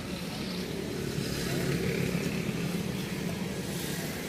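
Steady street traffic noise with a motor vehicle engine running, a little louder around two seconds in.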